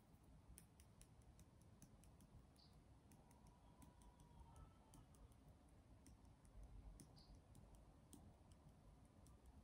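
Near silence with many faint, irregular clicks from a small plastic glitter bottle being shaken and tapped as glitter is sprinkled onto a tray.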